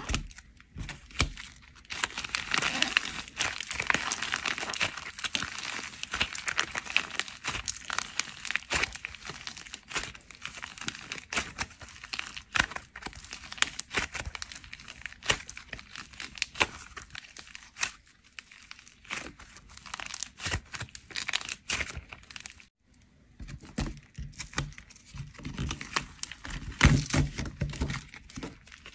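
Dried plaster clay cracked and crumbled by hand: a dense, continuous run of crisp crackles and crunches, with a few louder snaps near the end.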